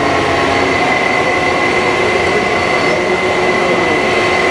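Steady machine noise with a constant high whine, unbroken throughout.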